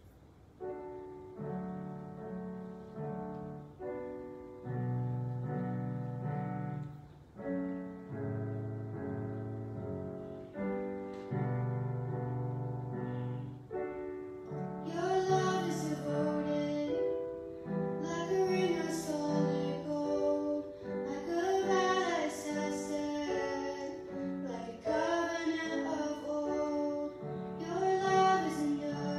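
Piano playing a slow introduction of held chords. About halfway through, a young woman's solo voice comes in, singing with vibrato over the piano accompaniment.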